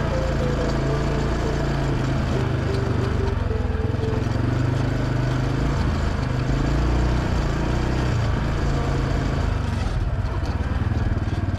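ATV engine running steadily.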